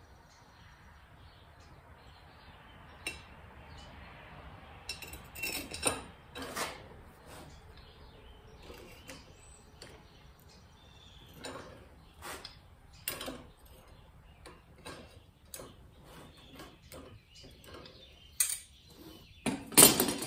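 Scattered metal clinks and scrapes as tongs grip and twist a forged steel tulip bud on its rod, straightening a twist at the bottom of the bud, with a louder metal clank near the end.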